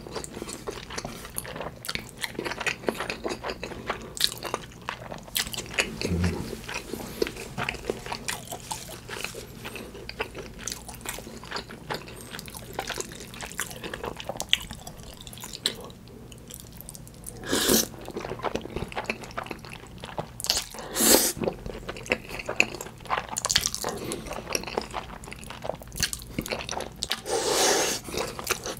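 Close-up eating sounds: wet chewing and smacking of black-bean instant noodles with chili tuna and fried egg, a steady patter of small mouth clicks. There are a few louder, longer noisy bursts past the middle and near the end.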